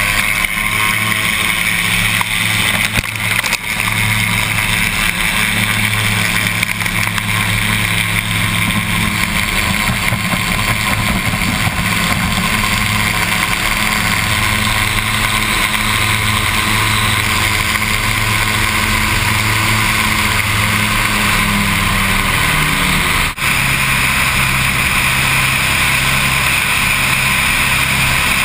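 Aircam amphibian's twin engines running steadily at high power, with water rushing and spraying along the float early on. About four-fifths of the way through there is a short click and drop, after which the engine note is steady and a little lower.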